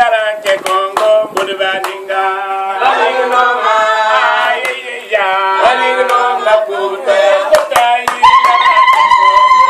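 A group singing with steady rhythmic hand clapping. From about eight seconds in, a long high note is held.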